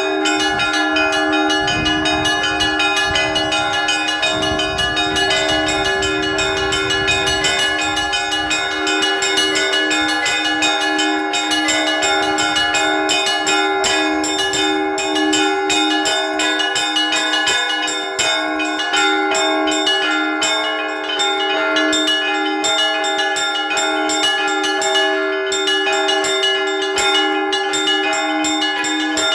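Russian Orthodox church bells rung together in a continuous peal: quick, repeated strikes over the held ringing of several bells.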